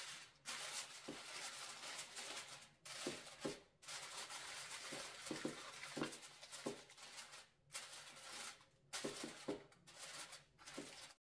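Aluminium foil crinkling and rustling as hands press and crimp it around the edges of a baking dish, in spells broken by a few short pauses.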